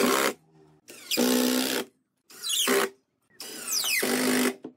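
Cordless drill driving wood screws into pine boards in short runs: three spurts of the motor after the tail of an earlier one, its whine falling in pitch in each run as the screw pulls in under load.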